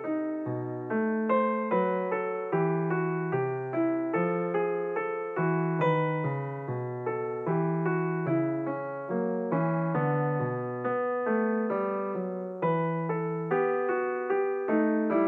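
Background piano music: a steady, flowing run of struck notes over low bass notes.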